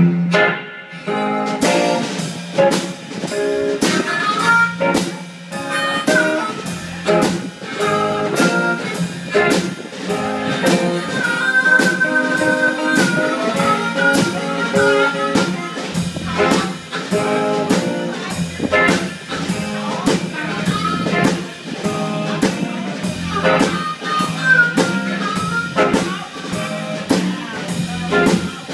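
Live electric blues band playing an instrumental intro at a steady tempo: electric guitar, electric bass and drum kit, with a harmonica cupped to the vocal microphone playing long held notes about 12 seconds in and again near 24 seconds.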